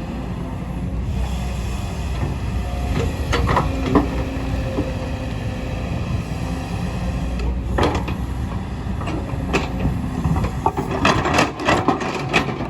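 Kobelco excavator's diesel engine running steadily under load, with scattered sharp knocks and clatter from the bucket working rock and soil, coming thicker near the end.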